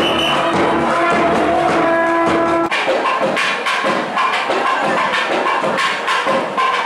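Temple festival music of reed pipes and drums. Held reed notes sound over the drumming until an abrupt cut about two and a half seconds in, after which quick drum strokes and a higher piping melody carry on.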